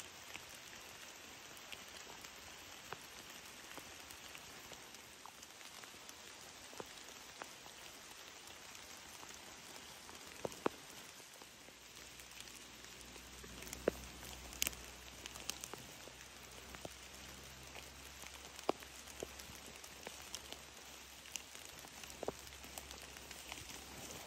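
Rain falling on forest foliage: a steady soft hiss with scattered sharp drips ticking, more of them in the second half. A faint low rumble comes in about halfway through.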